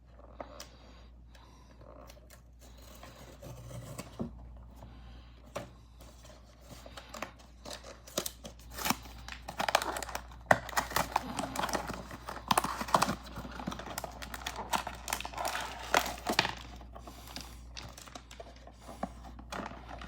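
Blind-box packaging being opened by hand: light handling at first, then a long stretch of dense crinkling, crackling and tearing of the packaging from about eight seconds in, easing off near the end.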